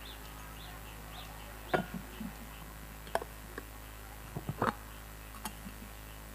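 A few short knocks and clicks over a low steady hum: one about a second and a half in, one about three seconds in, a quick cluster around four and a half seconds, and a fainter one near five and a half seconds.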